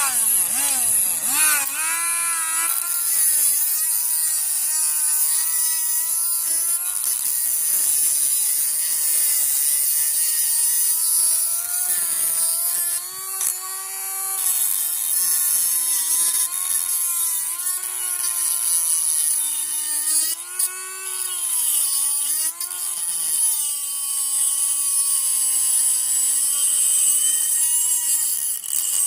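Small USB-powered mini electric grinder running: a high motor whine spins up right at the start, then wavers up and down in pitch under changing load, with a steady high hiss of grinding over it and a few brief dips.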